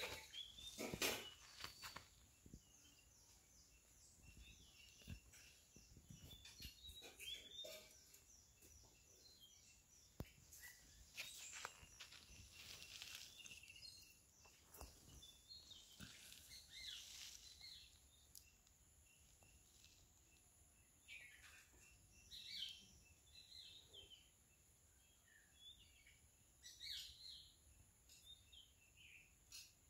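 Quiet outdoor ambience: faint short bird chirps scattered throughout over a steady high hiss, with occasional soft scuffs.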